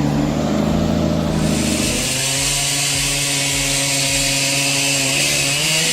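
An engine running at steady high speed. About a second and a half in, a loud hissing cutting noise joins it.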